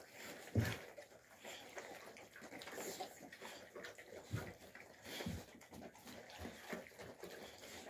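Alabai puppies eating from metal bowls: irregular chewing and lapping, with a few short knocks about half a second in and again around four and five seconds in.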